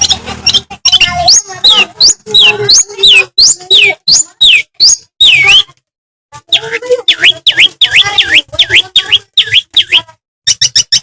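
Long-tailed shrike (cendet, Madura variety) in full song: a loud, fast stream of varied notes and harsh chatter, with repeated whistled notes that swoop down and back up. The song breaks off briefly about halfway through, then picks up again.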